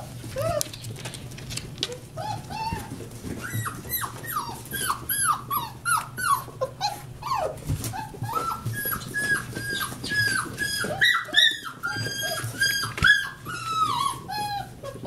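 Several puppies whining and yipping in quick, overlapping short high cries that fall in pitch, thickening a few seconds in and thinning out near the end, over a low steady hum.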